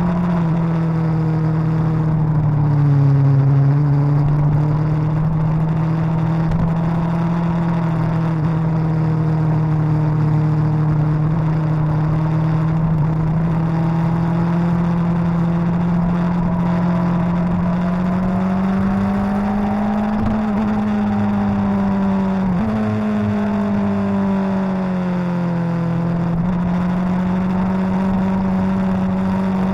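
Suzuki GSX-R1000's inline-four engine running under way through corners, its pitch sagging and climbing with the throttle, with one sudden step up in pitch about three quarters of the way through.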